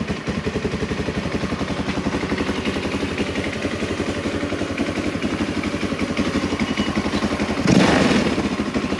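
Tao Motors Mudhawk 200 ATV's single-cylinder engine idling steadily on a new carburetor, with an even, rapid pulsing beat. A brief louder rush of noise comes near the end.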